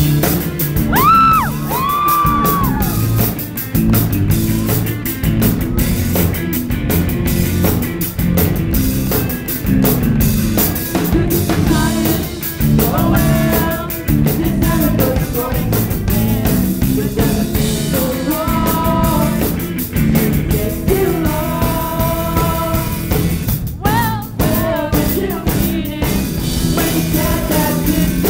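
Rock band playing live and loud, with drums and bass guitar under a singer whose vocal lines come and go, including sliding notes about a second in.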